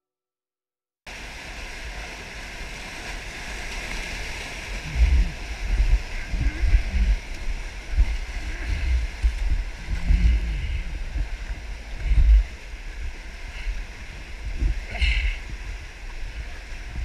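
Whitewater rapid rushing steadily, heard from a packraft running through it. It starts about a second in, and heavy, irregular low thumps and buffeting on the microphone come and go through the middle as the raft plunges through the waves.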